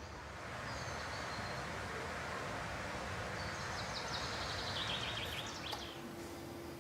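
Outdoor ambience: a steady rushing background noise with small birds chirping now and then, most of the chirps in the second half.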